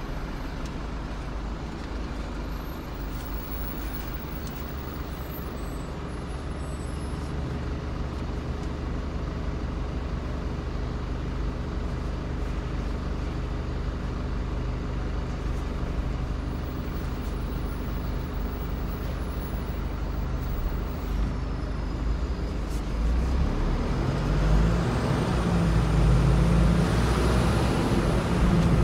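Car engine and road noise from a car moving slowly in stop-and-go city traffic, a steady low rumble. About three-quarters of the way through it grows louder, with a rising engine note, as the car speeds up onto an open street.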